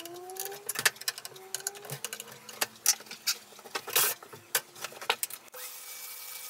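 Canister vacuum cleaner running, its motor pitch wandering and rising, with scattered sharp clicks and knocks from tools and case parts being handled. About five and a half seconds in, the sound changes abruptly to a steady hum with hiss.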